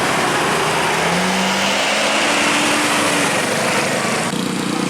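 A motor vehicle's engine accelerates, its pitch rising for a couple of seconds over a dense rush of road noise. Near the end the rushing drops away, leaving a steadier, lower engine hum.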